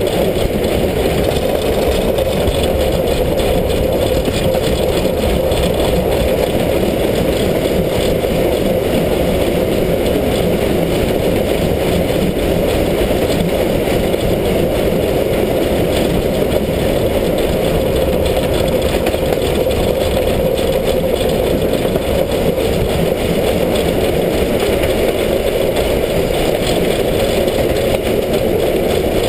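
Steam locomotive 33-037 running along the line, heard from close beside its wheels and rods: a loud, steady running noise with rushing air, with no clear exhaust beat.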